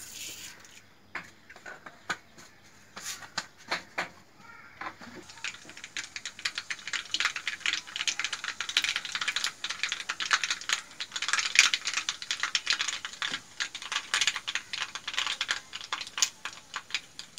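Mustard seeds popping in hot coconut oil in a wok during tempering: a few scattered pops at first, then a dense crackle of sharp pops from about five seconds in. The popping shows that the oil is hot enough and the seeds are done, ready for the curry leaves.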